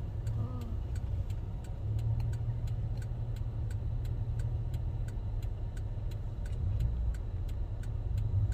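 Car engine idling with a steady low rumble, and a light, regular ticking about three times a second.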